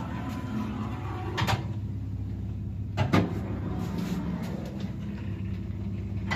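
A 1979 UkrKommunMash passenger lift with a steady low hum. Sharp clatters sound about a second and a half in and again about three seconds in, the second one the loudest, with another near the end.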